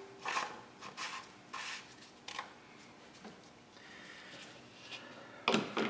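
Short scrapes and rubs of the plastic engine oil filler cap being twisted back on by a gloved hand, with a louder brief rustle near the end.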